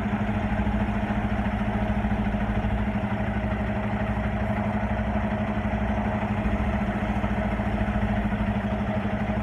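Semi-truck's diesel engine running steadily at idle while the tractor-trailer backs slowly, a low even hum that holds the same pitch throughout.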